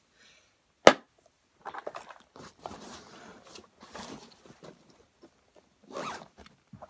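A hard plastic glasses case snaps shut with a single sharp click about a second in. It is followed by a backpack pocket zipper being pulled, with fabric rustling and scraping as the bag is handled.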